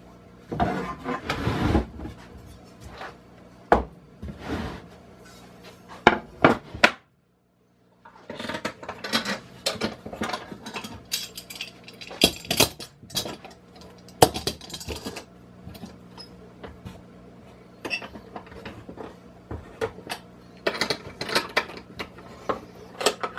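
Irregular knocks, taps and metallic clinks of 2x4 lumber, metal corner brackets and screws being handled and fitted while assembling a wooden rack frame, over a steady low hum. The sound drops out completely for about a second around seven seconds in.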